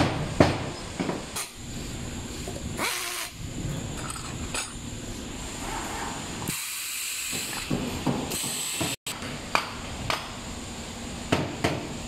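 Workshop noise: scattered metal clicks and knocks, with a few short bursts of hiss, the longest about six and a half seconds in.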